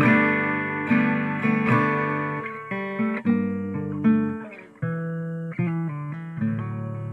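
Solo acoustic guitar played fingerstyle: plucked chords ring out in a steady pulse, thin to a few quieter single notes about two-thirds through, then fuller chords return near the end.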